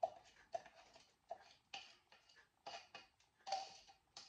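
White plastic spatula scraping and tapping against a plastic measuring cup as grated onion is knocked out into a bowl: a run of short, light taps and scrapes, roughly two a second and unevenly spaced.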